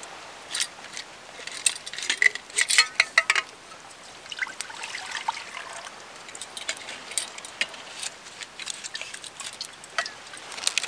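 Metal camp cookware clinking and clattering, in a dense run for the first few seconds and then lighter, with some trickling water, over a steady patter of rain.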